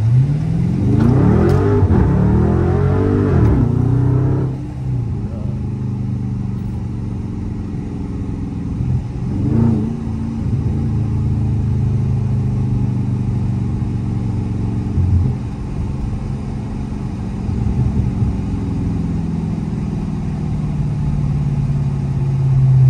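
Dodge Charger Scat Pack's 392 (6.4-litre) HEMI V8, heard from inside the cabin: it pulls hard for about four seconds, its pitch climbing and falling with gear changes, revs up briefly again about ten seconds in, then settles into a steady low drone.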